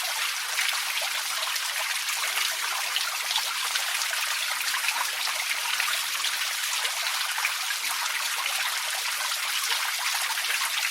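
Small outdoor water fountain splashing and trickling steadily, a bright, even patter of falling water with many small splashes.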